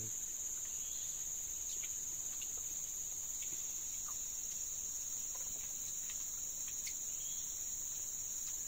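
Steady, high-pitched chorus of forest insects, with a few faint scattered clicks.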